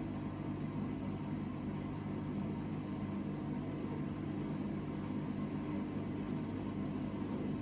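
Hoover VHD 9163 ZI washing machine running on a spin-only cycle: a steady hum with several fixed tones over a rumble. The owner says its drum bearings are broken, which is why it is so loud.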